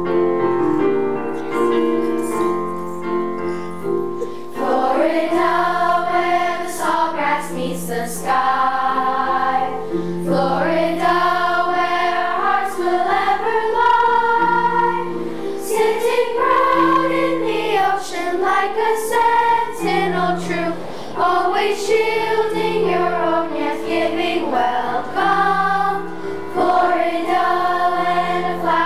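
Elementary school children's chorus singing with piano accompaniment. The piano plays alone for about the first four seconds before the voices come in.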